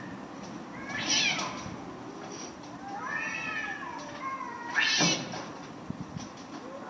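Cat yowling in long, wavering, drawn-out calls, three of them, the last ending in a sharp harsh burst about five seconds in.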